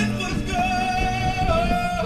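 Music with singing: a sung melody, one note held steady for over a second from about half a second in.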